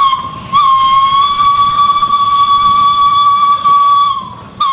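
Train whistle sound for a locomotive: a short toot, then one long steady whistle lasting about three and a half seconds that sags slightly in pitch as it fades, then another short toot.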